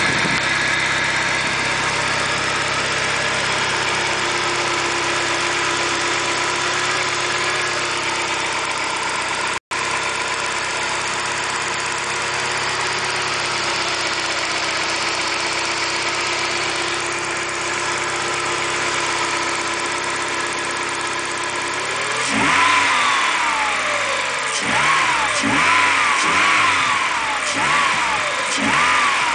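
Peugeot 406 coupé engine breathing through a K&N Apollo open intake filter, idling steadily, then revved in a quick series of throttle blips, each rising and falling, from about three quarters of the way through.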